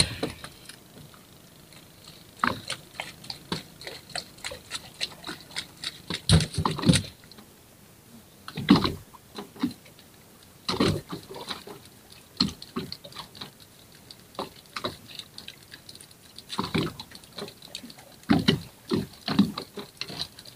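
Irregular knocks and slaps on a small fishing boat at sea, with water lapping against the hull.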